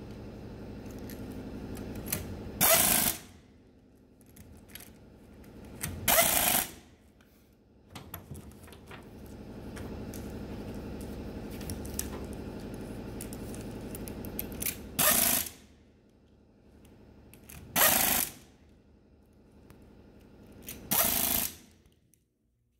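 Pneumatic ratchet on a long extension running bolts into a gear pump's relief valve cover. It runs in five short loud bursts of about half a second each, with a quieter steady running sound between some of them.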